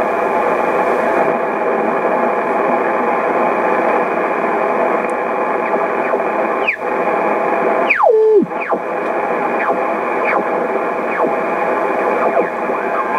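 SBE SB-36 HF transceiver's receiver being tuned across the 20-meter band: a steady hiss of band noise through its narrow sideband passband, with two quick falling whistles about seven and eight seconds in as the dial sweeps past signals.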